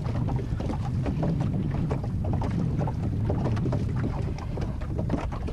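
Small wooden fishing boat under way on choppy water: waves slapping and splashing against the hull over a steady low rumble.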